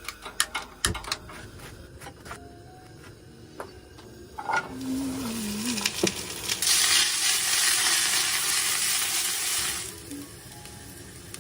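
Vegetables frying in a hot pan for a stir fry. A few clicks and knocks come first, then a loud sizzle from about six and a half to ten seconds in.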